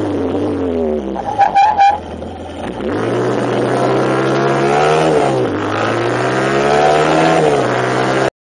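A vehicle's engine falls in pitch as it slows, and about a second in the Brembo brakes give a short pulsing squeal. The engine then rises in pitch, dips about five seconds in, and rises again before the sound cuts off suddenly near the end.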